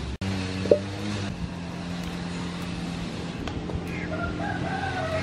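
A rooster crowing once, starting about four seconds in, over a steady low hum.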